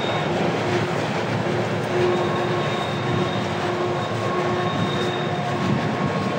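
CN freight train's boxcars and intermodal cars rolling past: a steady rumble of wheels on rail, with faint high tones coming and going.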